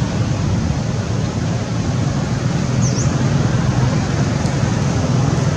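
Steady low rumble with hiss, a constant outdoor background noise with no monkey calls, and one brief faint high chirp about three seconds in.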